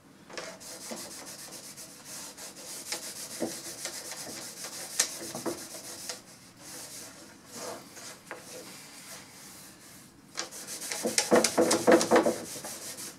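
Rag wiping wood stain onto birch plywood: a run of rubbing strokes, with a louder spell of quick back-and-forth rubbing near the end.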